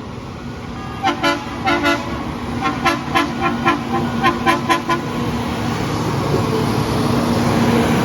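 Horn on a passing railroad maintenance-of-way machine sounding about a dozen short toots in quick groups, over the running noise of the track equipment, which grows louder through the second half.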